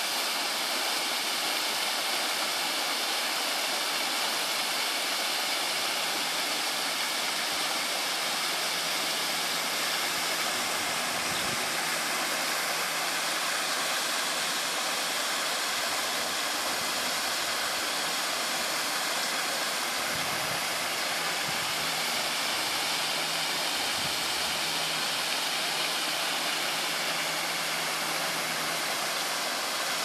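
Waterfall pouring down a rock face into a pool: a steady, even rush of falling water.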